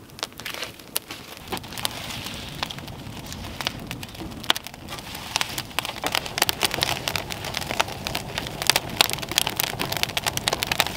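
Wood fire crackling and popping under logs as it chars them: many sharp pops, coming thicker after the first couple of seconds.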